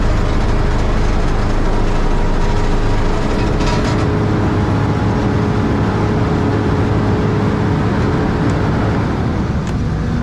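Engine of a small ride-on roller compactor running steadily as the roller drives along, with a short hiss near four seconds in.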